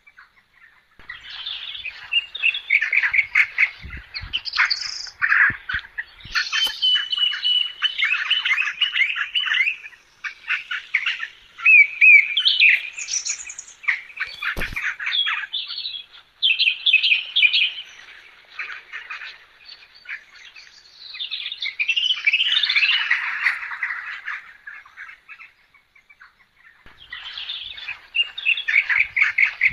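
Birds chirping and calling, many short notes and quick whistled sweeps coming in bursts with short pauses between them.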